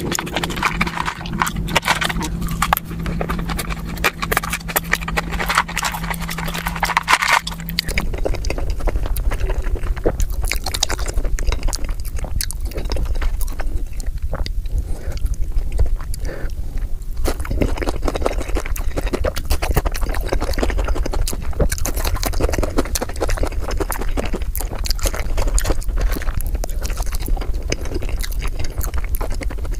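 Close-miked eating sounds played at double speed: quick clicks and scrapes of a plastic fork in a paper tray of loaded fries over a steady low hum that stops about eight seconds in, then chewing, biting and wet mouth sounds from someone eating breaded chicken tenders and cheese-covered fries.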